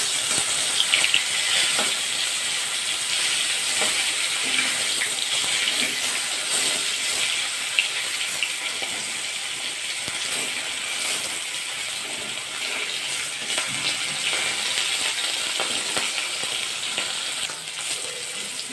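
Rohu fish steaks sizzling steadily as they shallow-fry in hot mustard oil in a metal wok, with a fine crackle of spitting oil. A metal spatula turning the pieces clicks against the wok a few times.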